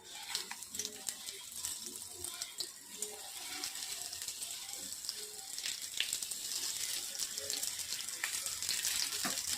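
Stuffed brinjals frying in hot oil in a pan: a steady sizzle with dense crackling and popping.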